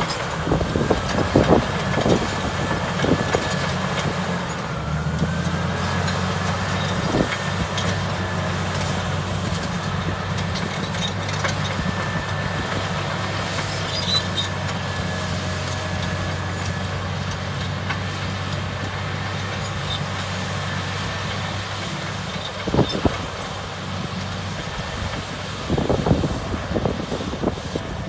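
Bulldozer diesel engine running hard while ripping stone, a steady deep drone that grows heavier about five seconds in and eases about twenty-two seconds in, with a thin steady whine over it. Sharp cracks and knocks of rock breaking come now and then, bunched near the start and again near the end.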